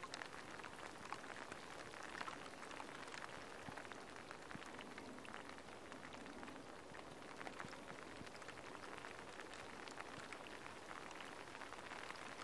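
Light rain pattering: a faint, steady hiss thick with small drop ticks.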